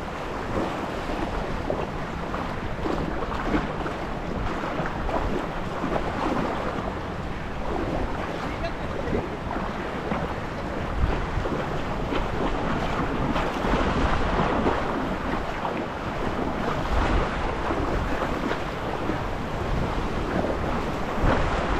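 Shallow surf washing and breaking in choppy water, with wind buffeting the microphone in uneven gusts.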